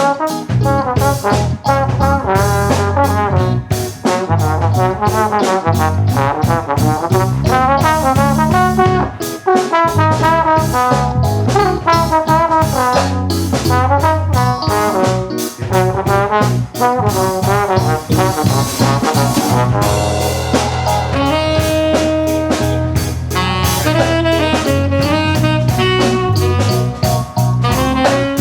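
Live jazz band playing an instrumental break: trombone and trumpet carry quick melodic lines over drum kit and bass.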